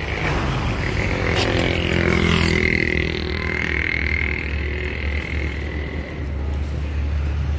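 Motor vehicle engine running with a steady low hum. About two to four seconds in, a second engine note swells and falls in pitch, as of a vehicle passing.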